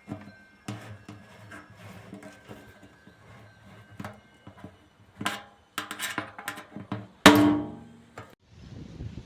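Sheet-metal PC case parts being handled: irregular knocks and clatter, with one loud metallic clang about seven seconds in that rings briefly. Near the end the sound changes abruptly to a steady hiss.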